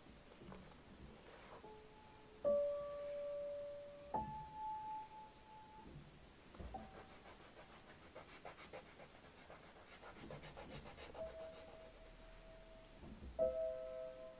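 Soft, slow background piano music: sparse single notes, each held for a second or two, and a two-note chord near the end.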